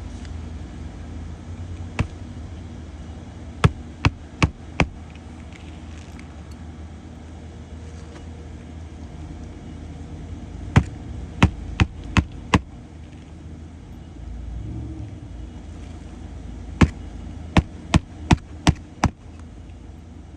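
Hammer driving roofing nails into a replacement asphalt shingle: three runs of four to six sharp blows, about two or three a second, over a steady low rumble.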